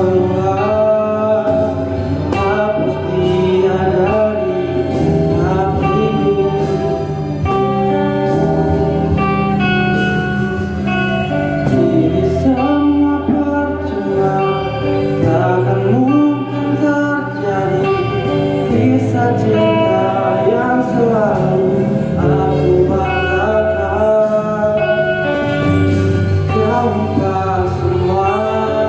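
A voice singing a pop song over instrumental music backing.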